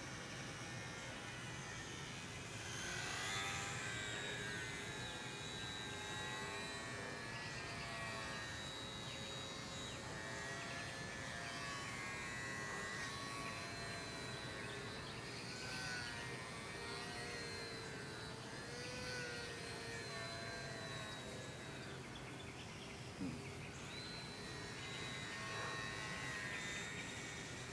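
Small RC model plane's motor buzzing in flight overhead, its pitch wavering up and down as it throttles and turns.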